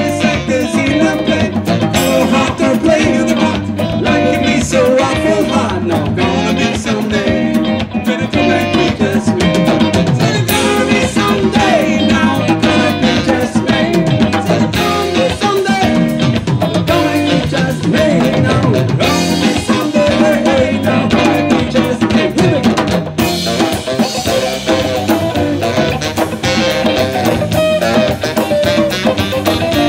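Live band playing: drum kit and djembe keep a steady beat under electric guitar and a wavering saxophone line.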